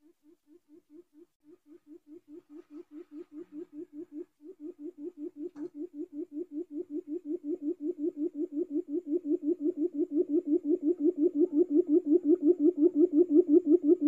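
Quail lure call: a long run of short, low hooting notes, about five a second, growing steadily louder.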